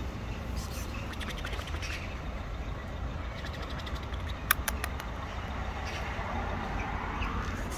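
Street traffic: a steady low rumble, with a vehicle passing near the end. A few sharp clicks come a little past halfway.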